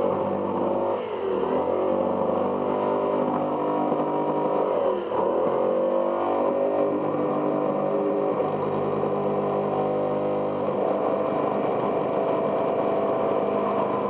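Corded Skil jigsaw cutting a curved line through a plastic cooler lid, its motor running at speed with the blade chattering in the plastic. The pitch dips and recovers a few times during the cut.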